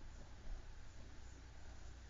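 Faint rubbing of a felt-tip marker on paper as it traces a curved line, over low room noise.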